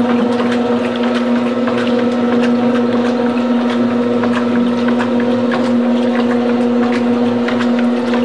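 Top-loading washing machine agitating a load in water: a loud, steady motor hum with water sloshing and many small clicks and splashes.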